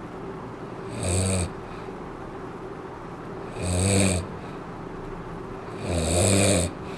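A man snoring in his sleep: three loud, low buzzing snores, each under a second long, coming about every two and a half seconds.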